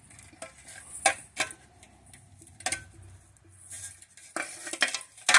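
Light metallic clinks and taps of steel parts and tools being handled, with stretches of hissy scraping about the middle and toward the end.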